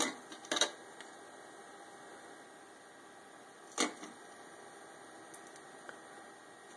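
Light clicks and taps of a small light bulb and its metal contact tabs being handled and pressed into a plastic bulb holder: two close together at the start and one more a little before four seconds in, over a faint steady hum.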